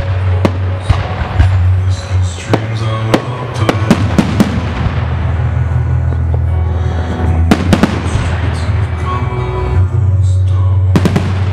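Aerial firework shells bursting with sharp bangs in clusters, over loud music of a pyromusical soundtrack played through loudspeakers.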